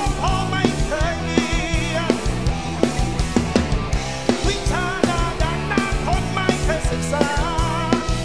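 Live rock band playing: a male singer sings a melody with vibrato over electric guitar, bass and a drum kit keeping a steady beat.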